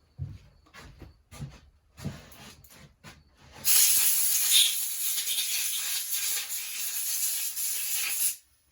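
A few light clicks and knocks of parts being handled, then a loud, steady hiss of gas released under pressure, like a blow gun or spray can, lasting about five seconds and stopping suddenly.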